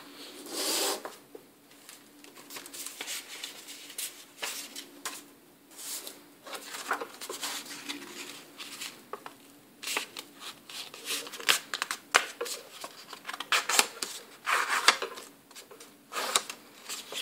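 A sheet of red origami paper rustling and crinkling as it is handled and flexed by hand, with irregular sharp crackles and short rubbing bursts.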